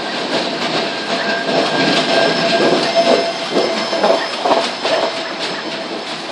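Loaded freight cars of a metre-gauge train rolling past, wheels clacking over the rail joints with a steady high wheel squeal. The higher squeal stops about three seconds in, and the sound fades as the last car goes by.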